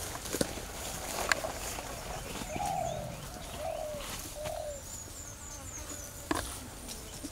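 A dove cooing: three or four arching notes in a row, followed by a quick, high twitter from a small bird, with a few sharp clicks in between.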